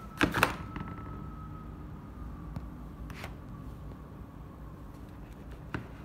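Sharp clicks and taps from a smartphone being handled and set down on a table, the two loudest close together near the start and a few lighter ones later. Under them runs the steady hum of a running split air conditioner, with a faint high whine that drifts slightly lower.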